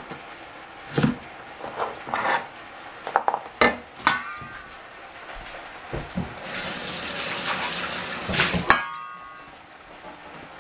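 Cleaver chopping crusty old ciabatta on a plastic cutting board: a run of knocks over the first four seconds, with a couple of metallic clinks. Then a tap runs for about two seconds and stops with a clink.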